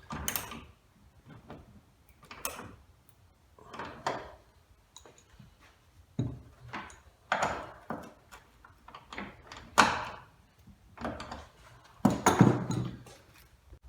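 Irregular clanks, rattles and scrapes of hand tools and metal mounting hardware being worked on a pickup tailgate, coming in separate short bursts every second or two. The loudest knocks come near ten seconds in and again about two seconds later.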